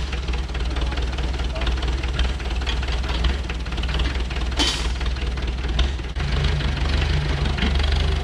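An engine that has just been started, running steadily; about six seconds in its note settles into an even, low idle.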